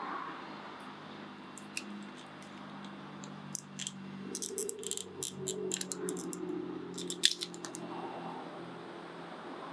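Small sharp clicks and taps of plastic and metal as a car's power window switch is pried apart with a small flat-blade screwdriver and handled. The clicks come in a cluster through the middle, with one loudest snap about seven seconds in. A low steady hum sits underneath.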